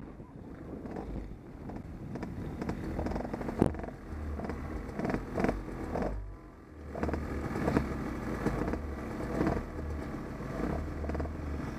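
Off-road motorcycle being ridden, its engine running under low rumbling wind buffeting on the microphone, with repeated knocks and rattles and one sharp knock about three and a half seconds in.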